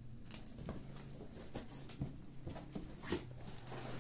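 Cardboard shipping box being opened by hand: the flaps are pulled apart and the cardboard handled, giving scattered taps and scrapes, the loudest a little after three seconds in.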